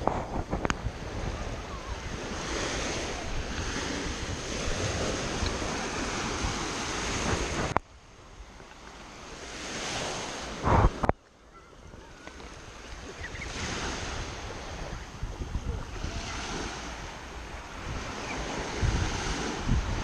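Small Baltic Sea waves breaking and washing up a sandy shore, with wind buffeting the microphone. The sound drops away suddenly about eight seconds in, rises again, and there is a brief loud gust or rush just before a second sudden drop about eleven seconds in.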